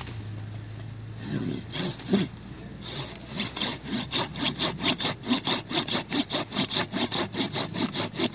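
Silky Gomboy Curve folding pull saw cutting through a thick log. A few slow strokes start the cut, then from about three seconds in it runs in a steady fast rhythm of about four strokes a second.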